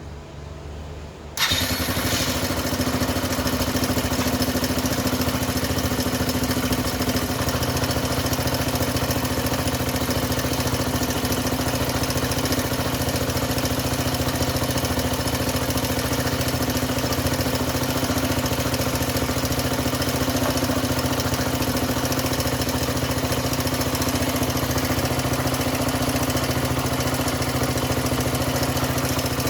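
Suzuki DF125 / Djebel 125's single-cylinder four-stroke engine starting about a second and a half in, then idling steadily, run after its oil change.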